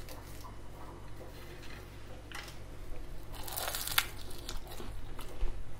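Someone biting into and chewing a crisp puff-pastry almond croissant, a crackly crunch of flaky pastry that comes in short bursts, loudest about three and a half to four seconds in with a sharp crack.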